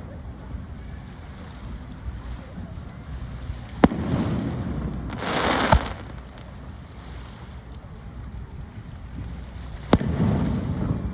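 Aerial fireworks shells bursting, three sharp bangs about four, six and ten seconds in, with a crackling hiss just before the second, over a constant low rumble of the display.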